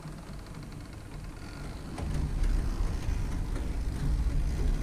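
Model steam locomotive running off the turntable onto the stall track: its motor and wheels make a low, uneven rumble over the shaky, bumpy temporary track, getting louder about two seconds in.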